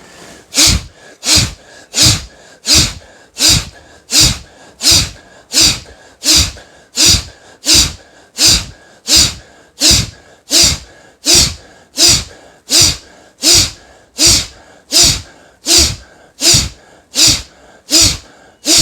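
Forceful exhalations through the nose, one after another at an even pace of about three every two seconds: a yogic breathing practice for expelling mucus from the nasal passages.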